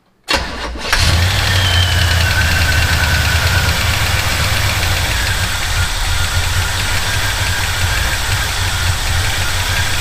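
1977 Chevy C10's freshly rebuilt small-block 350 V8 cranks briefly on the starter, catches about a second in, and runs steadily. It is restarted here after the ignition timing has been turned back a hair. A high squeal from the belts falls slightly over a couple of seconds just after it catches.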